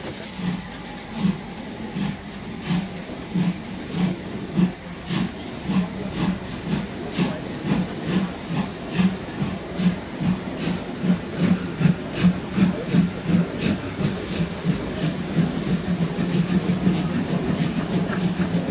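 Steam locomotive exhaust chuffing as the train starts away, the beats quickening from a little over one a second until they run together near the end, with rising steam hiss.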